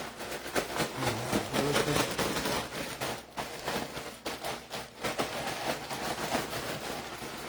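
Plastic bag crinkling and rustling in irregular bursts as seasoned green beans are handled and shaken in it.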